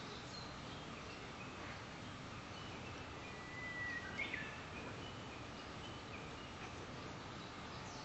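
Quiet outdoor ambience with faint, scattered chirps of distant wild birds, and one short whistled bird note about three and a half seconds in.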